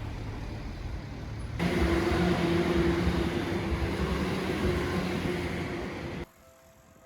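Rumble of a passing vehicle at a railway crossing with a steady low hum. It gets abruptly louder about a second and a half in, then cuts off suddenly about six seconds in, leaving only faint steady tones.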